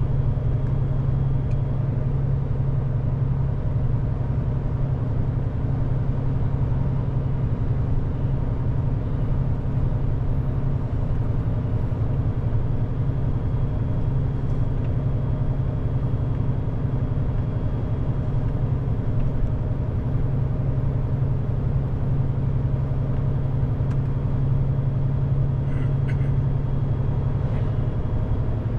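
Scania truck's diesel engine and road noise heard inside the cab while cruising at a steady speed: an even, unchanging low drone.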